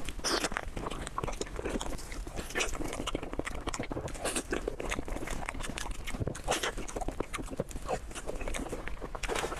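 Close-miked eating sounds: a person chewing and biting food, with irregular crackling, crunching and wet mouth noises.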